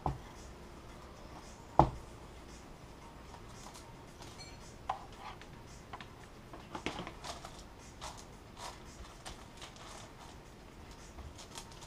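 Workbench handling sounds while clear plastic laminating film is ironed onto a foam model wing: a sharp knock at the start and a louder one about two seconds in, then light scattered rustling and crinkling of the film.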